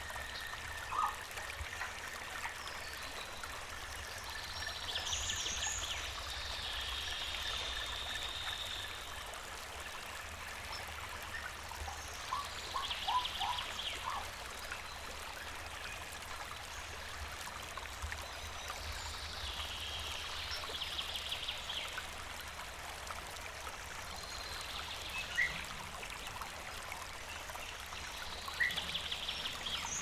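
A river or stream flowing steadily, with birds calling over it: a high trilling call comes back every several seconds, with a few short chirps in between.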